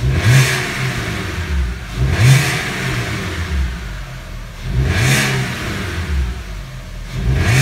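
Audi A4 B6's ALT 2.0-litre four-cylinder petrol engine revved while parked: about four quick throttle blips a couple of seconds apart, each rising and dropping back toward idle. The owner feels something isn't right with the exhaust silencer.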